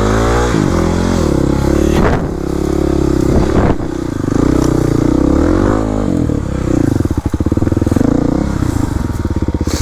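Kawasaki KLX300 dirt bike's single-cylinder four-stroke engine under way, its revs repeatedly rising and falling with the throttle, with a few sharp knocks. About seven seconds in, it settles into a low-rev chug.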